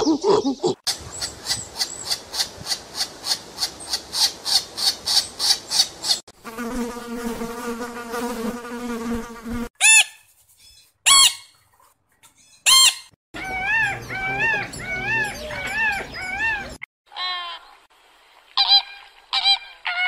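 A series of animal calls. Brief monkey calls at the start give way to an insect's rapid high chirping pulses, about four a second, then a steady insect buzz. Next come three loud harsh squawks from scarlet macaws, a run of repeated rising-and-falling calls, and Canada geese honking near the end.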